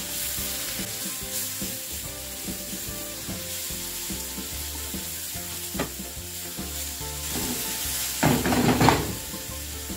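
Sliced onions and garlic paste sizzling in hot oil in a frying pan while being stirred with a silicone spatula, a sautéed onion-garlic base. The stirring noise grows louder for about a second near the end.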